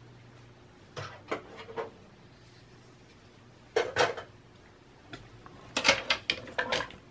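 Sharp clicks and clattering of plastic and metal computer parts being handled inside a small desktop PC case: a few light clicks, then two heavier bursts of clatter, the last a quick run of knocks.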